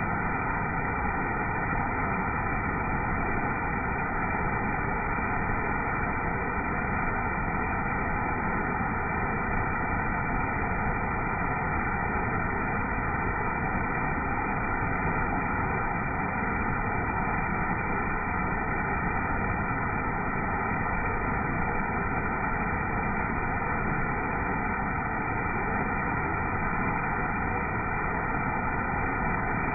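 Small waterfall pouring steadily onto rock and into a shallow pool, a constant rushing of water with no change.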